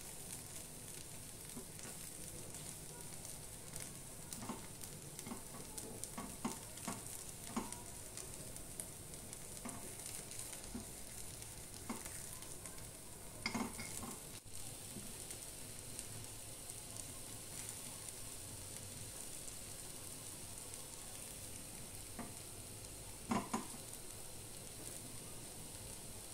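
Faint steady sizzle of ghee frying potato patties in the cups of an appam pan. Now and then a spoon clicks against the pan as the patties are turned, with the loudest pair of taps near the end.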